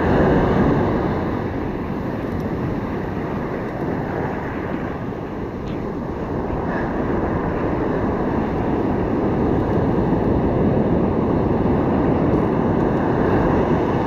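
Ocean surf breaking and washing up the beach, with wind rumbling on the microphone; the wash swells and eases in slow waves.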